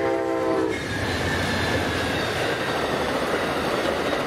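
A train horn chord ending under a second in, then an Amtrak passenger train of bilevel cars rushing past at speed, its wheels running loudly over the rails.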